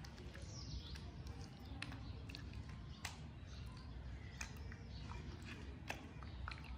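Bare hands rubbing a wet masala paste into whole raw pomfret on a plate: soft wet squelches and sticky clicks at irregular moments, over a steady low background rumble.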